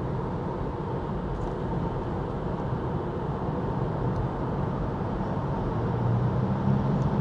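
Steady road and tyre noise heard inside the cabin of a moving Tesla Model 3 electric car, with a low hum underneath, growing a little louder near the end.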